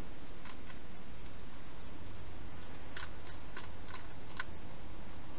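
Steady hiss of a night-vision camera's microphone with a handful of short clicks, most of them in a quick cluster in the second half: a hedgehog eating from a bowl inside a plastic feeding box.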